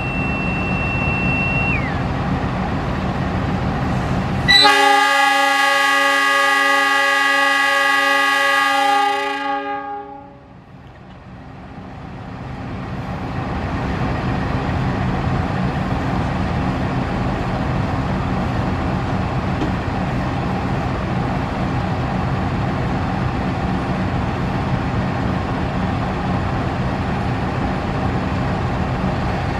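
KAI CC 206 diesel-electric locomotive running with a steady engine drone. About four and a half seconds in, its air horn sounds one long chord of several tones for about five seconds. The engine noise then dips briefly and builds back to a steady drone as the train pulls out.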